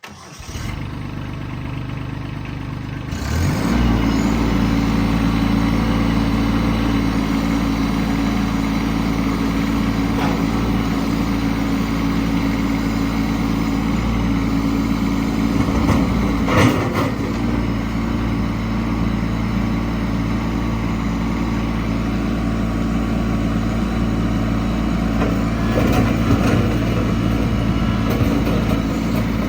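Kubota LX2610 compact tractor's three-cylinder diesel starting and idling, then brought up to a higher steady speed about three seconds in and running evenly. A single sharp knock sounds about halfway through.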